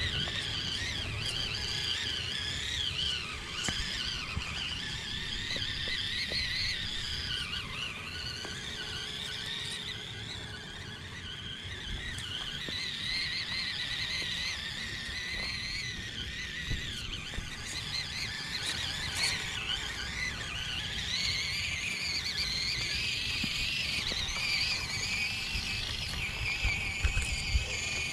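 Electric drivetrain of a 1/18-scale FMS Atlas 6x6 RC crawler whining as it crawls over dirt and rocks, the pitch rising and falling with the throttle. A few sharp ticks come near the end.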